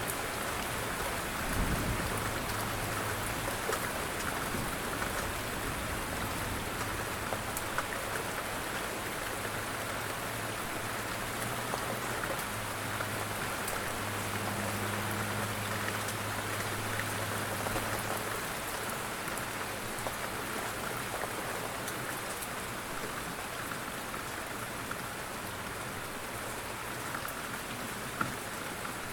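Steady rain falling on surfaces, with many individual drops ticking, and one brief low thump about two seconds in.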